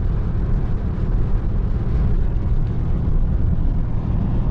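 Steady road and wind noise of a car cruising at motorway speed, heard from inside the cabin.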